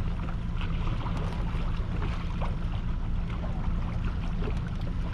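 Boat's outboard motor running steadily at trolling speed with a low hum, over wind and water noise.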